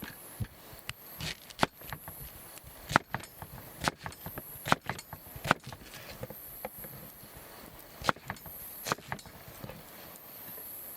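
A series of sharp knocks and snaps at irregular intervals, some louder than others, from wood or camp gear being handled. Insects buzz faintly in pulses behind them.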